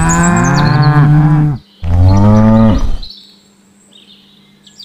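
Cow mooing: two long calls, one right after the other.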